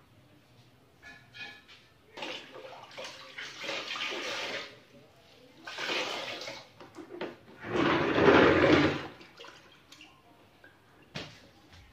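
A floor-wiping cloth being rinsed and squeezed out in a bucket of water: three bursts of sloshing and splashing, the last and loudest a little past the middle, then a few light drips and handling noises.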